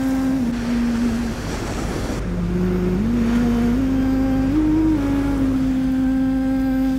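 Slow background music: a single melodic line of long held notes stepping from one pitch to the next, over the steady rush of sea waves breaking.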